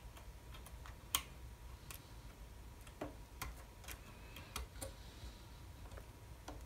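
Faint, irregular small clicks and taps as fingers press and position a thin wooden strip against a wooden ship model.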